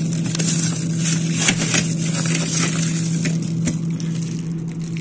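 Frozen food in plastic bags crinkling and rustling as it is shifted about and pulled out of a packed freezer compartment, over a steady low hum.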